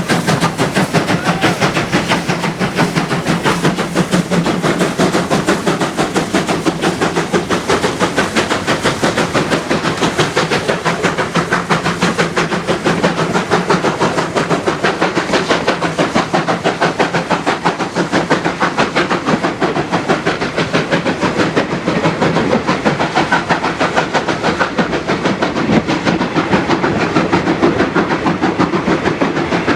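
Ex-SAR Class 19D steam locomotive working a train past, its exhaust beating in a fast, even rhythm with the hiss of steam throughout.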